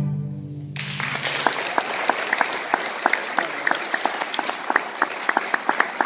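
A string orchestra's final chord dies away in the first second. Then audience applause breaks out and carries on as dense, steady clapping with individual claps standing out.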